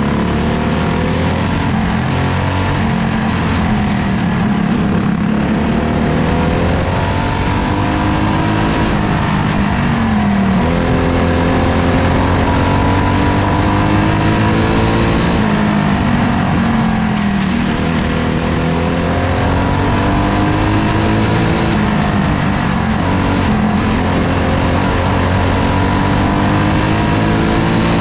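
Race car engine heard onboard at racing speed. Its pitch climbs for several seconds as the car accelerates, then drops sharply when the throttle comes off for a turn, repeating about every five to six seconds over steady wind and track noise.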